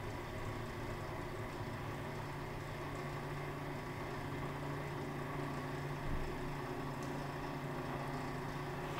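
VMI Sigma ES250 dough mixer running, a steady even motor hum.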